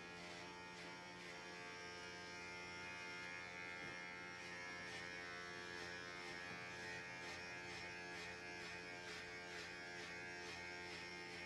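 Electric hair clippers buzzing steadily while cutting short hair, with short crisp strokes about three times a second.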